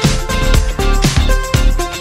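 Background music with a steady dance beat, low bass thumps about twice a second under held notes.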